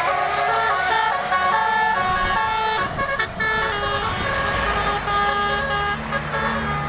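Bus 'telolet' multi-tone horn of the Basuri type playing a quick melody of short stepped notes. A bus engine runs beneath it and grows louder near the end.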